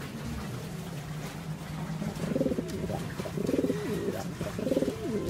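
Domestic pigeon cooing in a loft cage: three rolling coos, each rising and falling in pitch, about a second apart, starting about two seconds in.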